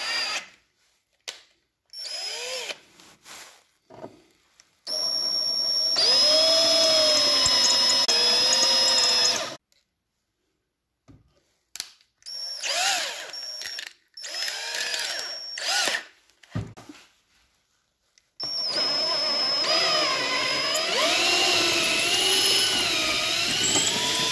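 Cordless drill running a screw extractor bit into a stripped screw in wood, in several short bursts and two long runs of several seconds, the motor pitch sagging and recovering as the bit bites, and the screw backing out of the board.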